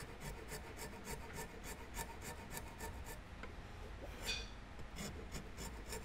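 Steel file rasping across a walnut gun-grip panel in quick, even strokes, several a second, with two heavier strokes about four and five seconds in.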